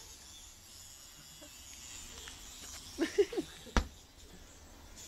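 A faint steady hiss, then a brief vocal sound about three seconds in, followed by a single sharp click.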